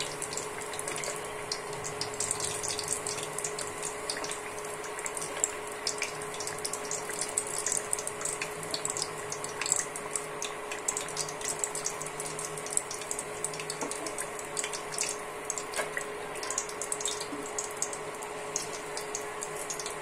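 Cabbage pakoras deep-frying in hot oil in a frying pan: a steady sizzle with dense crackling, over a steady hum.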